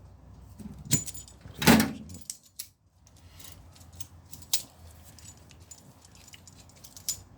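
Metal hand tools clinking and rattling as pliers are fetched, with a few sharp clinks, the loudest about two seconds in, then lighter scattered ticks.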